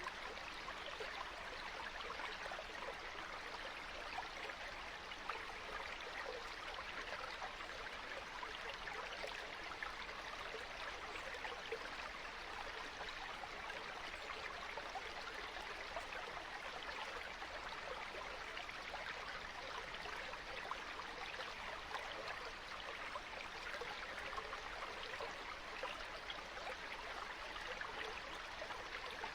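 Stream water running steadily, an even rush with a dense, fine splashing texture that does not change.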